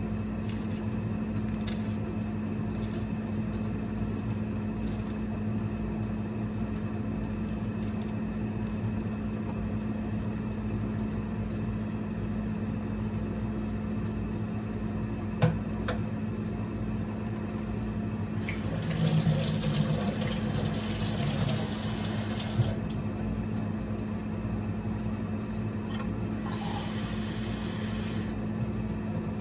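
A kitchen tap runs twice, once for about four seconds and once for about two, over a steady low hum. A single sharp click comes shortly before the first run.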